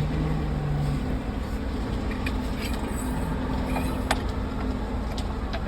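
A steady low engine hum runs throughout, with a few sharp metallic clicks and clinks, the clearest about four seconds in.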